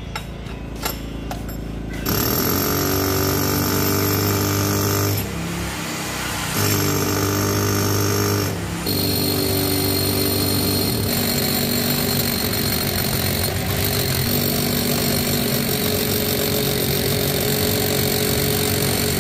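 Milwaukee rotary hammer with a long masonry bit drilling into a concrete block wall. It starts about two seconds in, lets off briefly twice, then runs steadily.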